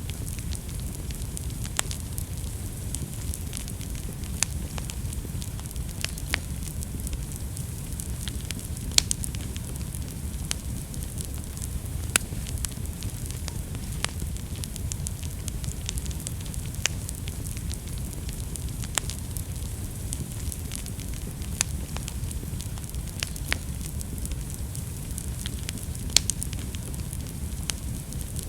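Wood fire burning in a fireplace: a steady low rumble and hiss of the flames with sharp crackles and pops every second or so, a few of them louder.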